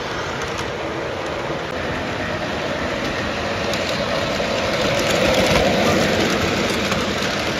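Model trains running on the layout's track: a steady rumble of wheels and motors on the rails, growing louder about five seconds in as a steam locomotive rolls past close by.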